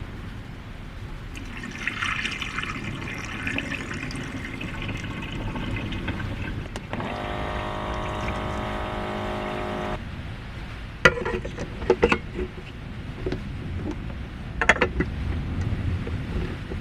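Water running or pouring. Then a steady, even-pitched hum for about three seconds that starts and stops abruptly, followed by a few sharp clicks and knocks.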